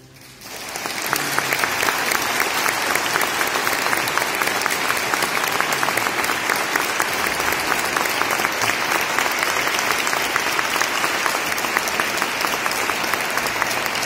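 Audience clapping as a choral piece ends: the clapping swells within the first second and then holds steady and dense.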